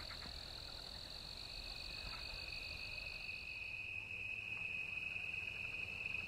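Night insects trilling steadily in a faint outdoor chorus. One high-pitched trill fades out around the middle, while a slightly lower one comes in about a second and a half in and carries on.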